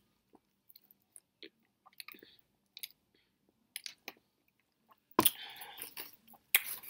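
Close-miked mouth sounds of a person chewing food and sipping a soda through a straw: soft, scattered wet clicks. About five seconds in, and again just before the end, come two louder noises, each lasting under a second.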